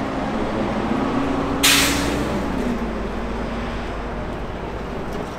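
City road traffic: a heavy vehicle's engine hum over a steady low rumble, the hum stepping down in pitch. About a second and a half in, a short, loud hiss of air from air brakes.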